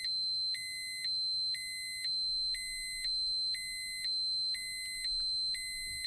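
Electronic radiation dosimeter alarm sounding: a steady high tone with a louder, lower tone switching on and off about once a second, giving a repeating two-tone beep. It is the warning that a set dose or dose-rate threshold has been exceeded.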